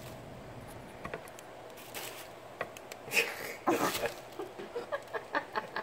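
Quiet handling noise: cloth rustling with scattered light clicks and taps, a short bit of voice a little past three seconds in, and a quick run of sharper clicks near the end.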